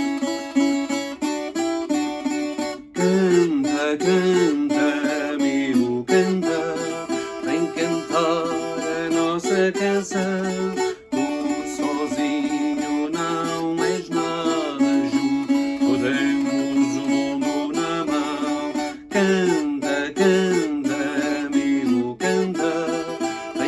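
Viola campaniça, a Portuguese steel-strung folk guitar, playing an instrumental passage: plucked notes in a moving melody over lower bass notes.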